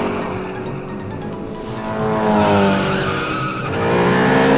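Cartoon race-car engine sound effects revving up, rising in pitch twice, over background music.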